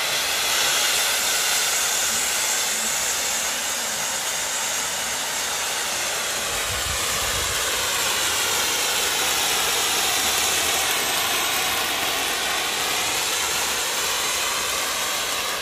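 Ground sparkler fountain ('pháo điện', an electrically ignited spark fountain of the kind lit at weddings) hissing steadily as it sprays a tall column of sparks.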